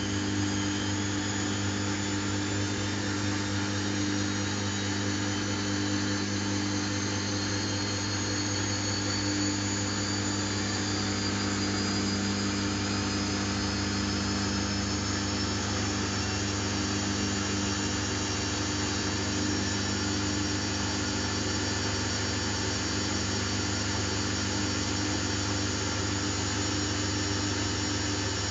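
Samsung WF70F5E0N4W front-loading washing machine in its intermediate spin: the motor and drum run at high speed with a high whine. The whine rises in pitch over the first half as the drum speeds up, then holds steady over a low hum.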